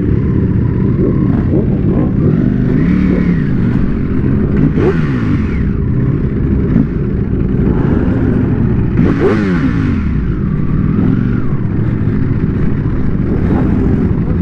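Superbike engines, the rider's own Ducati among them, idling and being blipped at low speed; the revs rise and fall several times, most sharply about nine seconds in.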